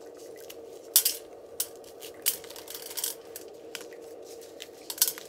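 Dried maize kernels being rubbed off the cob by hand, clicking and pinging as they drop into a metal plate in irregular bursts, over a steady background hum.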